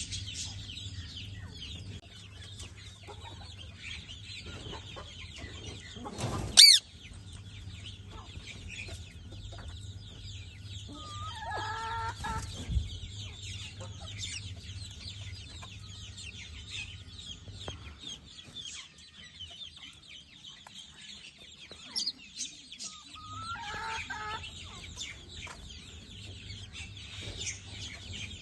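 Birds calling: constant high, chirping chatter, one loud shrill screech about six and a half seconds in, and lower clucking calls around twelve and twenty-four seconds. A steady low hum runs underneath, dropping out for a few seconds past the middle.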